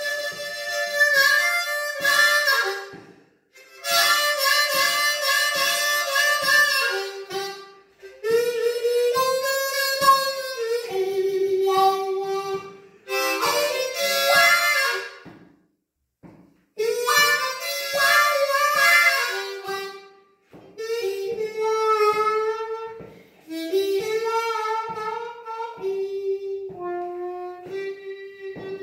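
Solo blues harmonica played in phrases of a few seconds separated by short pauses, with some notes bending down and back up in pitch.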